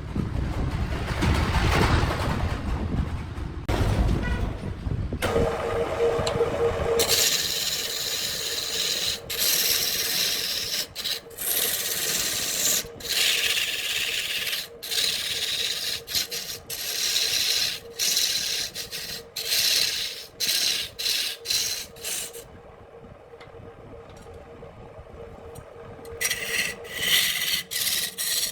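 A tool scraping the spinning wood on a handmade wood lathe, in short strokes that start and stop over a steady hum. The first few seconds hold a low rumbling noise instead, and the scraping pauses for a few seconds about three quarters of the way through.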